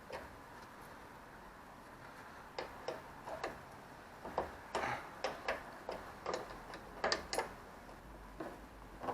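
Light, sharp clicks in runs of about three a second, from hand tools working on car parts during a strip-down.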